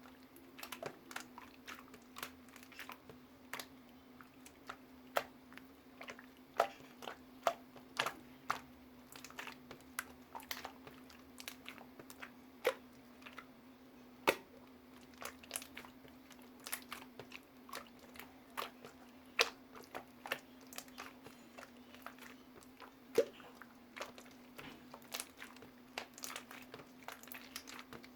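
Sky-blue marbled slime being squeezed and poked by hand, giving irregular sharp clicks and pops from trapped air, over a steady low hum.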